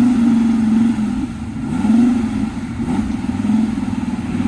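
2013 Dodge Viper SRT's 8.4-litre V10 running, its revs dipping and rising a few times with light throttle.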